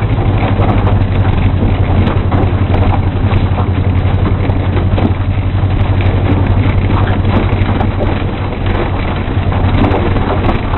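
Car engine running at a steady, unchanging speed, heard from inside the cabin as the car rolls over a rough paddock track, with scattered knocks and rattles over it.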